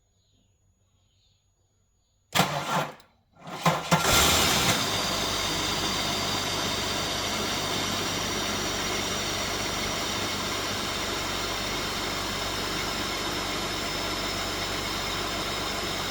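Holden VY Commodore engine being started after sitting for three weeks: a short burst of cranking about two seconds in, a brief break, then it cranks again and catches, flaring loudest about four seconds in before settling into a steady idle.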